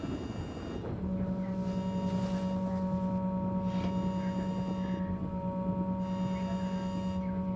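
Steady low electrical-style hum that comes in about a second in and holds, with fainter higher overtones and a slight pulsing.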